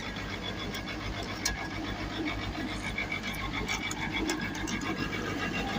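Hitachi excavator's diesel engine running steadily, with a few sharp clicks over it.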